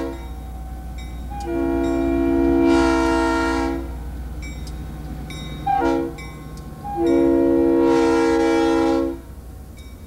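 Multi-chime air horn of an EMD GP-38 diesel locomotive sounding the grade-crossing pattern as it passes: the end of one long blast, then a long blast, a short one and a last long one. A steady low rumble from the locomotive and the train runs underneath.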